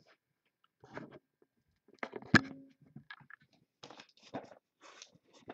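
A trading-card box and its packaging being handled: rustling and crinkling, with one sharp knock about two seconds in.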